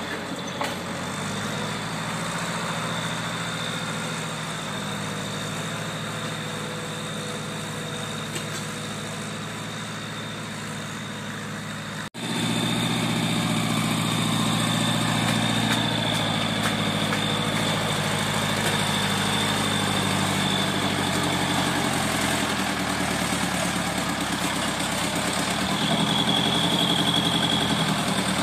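Farm tractor's diesel engine running steadily as it pulls a disc harrow across the field. There is a brief dropout about twelve seconds in, after which the engine is louder, and it grows louder again near the end as the tractor comes close.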